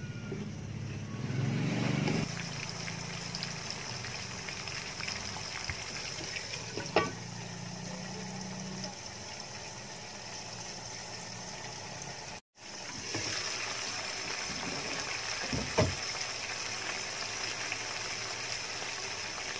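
Chicken pieces cooking in a spiced marinade in a wok, a steady sizzling and bubbling hiss. A spatula stirs near the start, and there are two sharp knocks, one about a third of the way in and one near the end.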